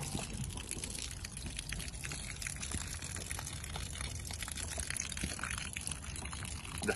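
Water pouring and splashing out of a plastic water jug that has been shot through, with small clicks and knocks of the jug being handled.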